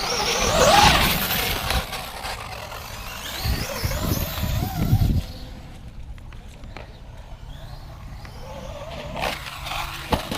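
Traxxas X-Maxx electric RC monster truck driving, its brushless motor whining up in pitch as it speeds off, then rough running and a few sharp clicks near the end from the driveline: the gear in the rear differential is stripping out.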